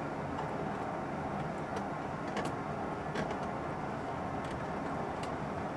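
Steady low background rumble, with a few faint, light clicks of hand tools working on the battery wiring connections.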